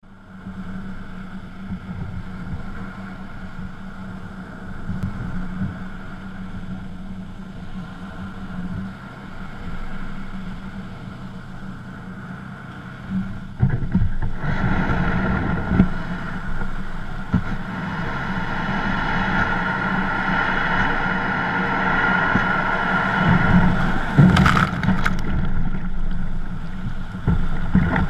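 Wind buffeting a kayak-mounted camera's microphone. About halfway through it turns to a louder scraping rush as the kayak hull is dragged over the sand into breaking surf, with a few sudden splashes near the end.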